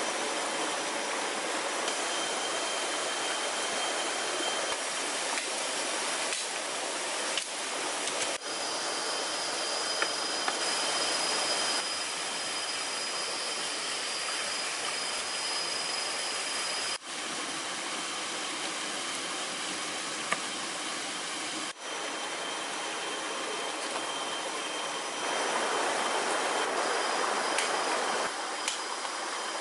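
Steady rushing of a forest stream over rocks, with thin steady high tones over it.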